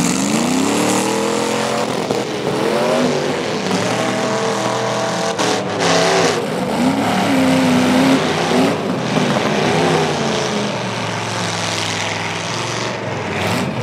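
Demolition derby trucks' engines revving hard, rising and falling in pitch over and over as the trucks accelerate and back up, with several engines running at once.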